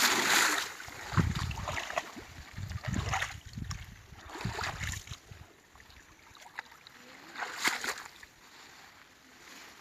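Water splashing and sloshing: a loud splash at the start, then a run of irregular low sloshes and swishes that fade out after about five seconds, with one short sharp splash near the end.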